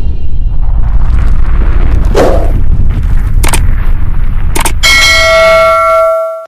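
Outro sound effects for a subscribe animation: a loud low rumble with a whoosh about two seconds in, two sharp clicks, then a bell-like ding that rings on with several steady tones and fades out at the end.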